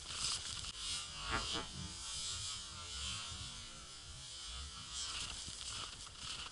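Footsteps crunching on a packed snow path. For a few seconds in the middle the steps give way to a steady hiss.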